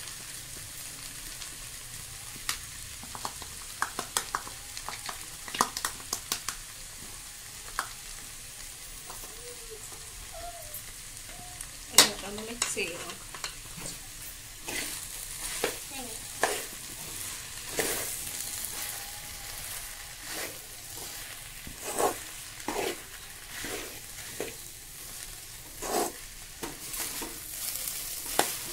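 Chopped okra sizzling in a pan while a metal spatula stirs it, with a steady hiss and repeated clicks and scrapes of the spatula against the pan; the sharpest knock comes about halfway through.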